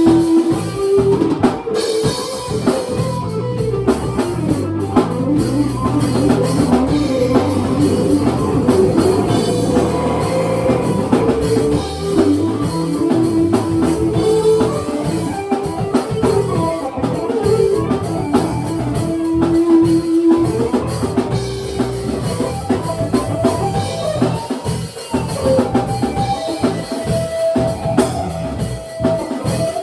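Live band jamming: a drum kit with kick and snare drives a steady beat under held, changing melody notes.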